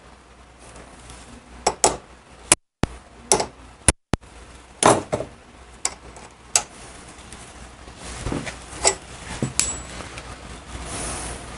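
Sharp metal clinks and knocks, about a dozen spread unevenly, from steel riveting tools and a Harley-Davidson Panhead clutch hub being handled and set down on a bench vise and workbench.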